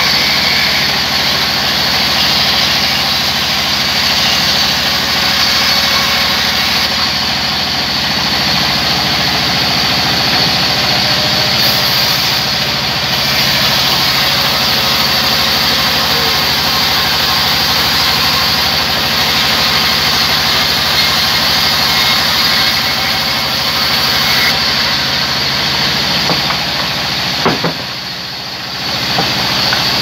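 Large sawmill band saw running steadily while a heavy timber log is fed through the blade and a slab is sliced off it. There is a sharp knock near the end, followed by a brief dip in level.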